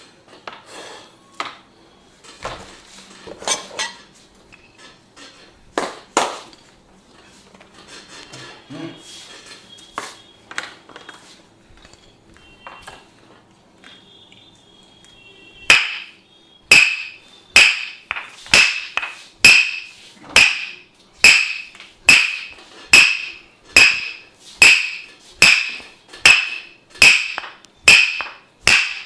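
Percussive massage: scattered soft taps and rubbing, then from about halfway a steady run of sharp, ringing strikes on the body at about two a second.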